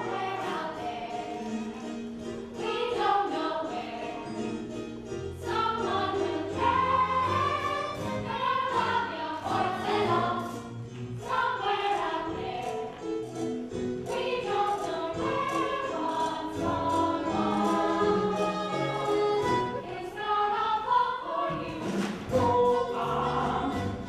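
Musical-theatre show tune: instrumental accompaniment under a chorus singing together during a dance section of the number.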